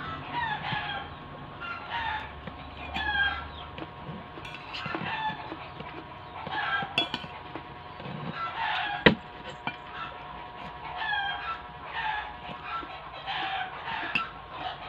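Birds calling over and over in the background, short falling calls coming about once or twice a second, while a metal spoon and fork clink and scrape on a ceramic plate; one sharp clink about nine seconds in.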